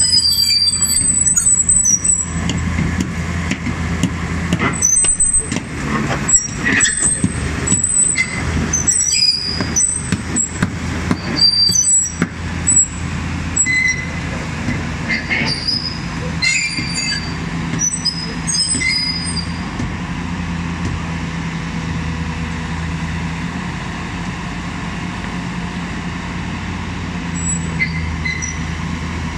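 Komatsu PC400 excavator working a hydraulic vibro hammer for sheet piling: a steady low diesel-and-hydraulic drone, with repeated short high metallic squeals and some knocks during the first two-thirds, then an even drone.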